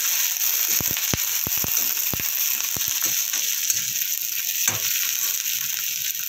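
Sliced onion, green chilli and capsicum sizzling in hot oil in a kadhai, with a metal spatula clicking and scraping against the pan as they are stirred. The clicks come thick and fast in the first three seconds, then thin out.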